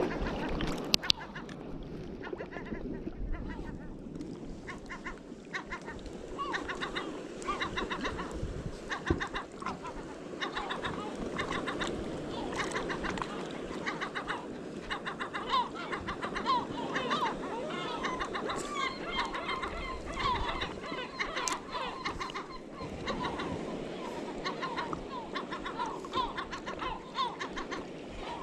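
A flock of birds calling, many short harsh cries repeated rapidly and overlapping.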